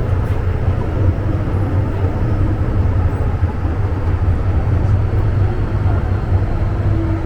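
MTR Island Line M-train running between stations, heard from inside the car: a steady, loud, low rumble of wheels on rail and running gear.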